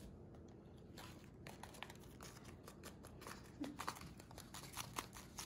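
Faint clicks, scrapes and rustles of a cardboard baking soda box and a plastic measuring spoon being handled, growing more frequent toward the end.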